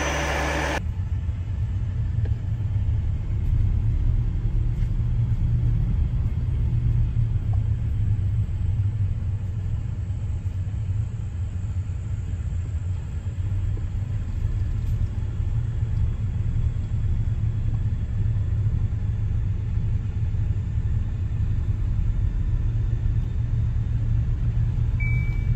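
Steady low rumble of a truck on the move, engine and road noise with no distinct pitch, with one short high beep near the end.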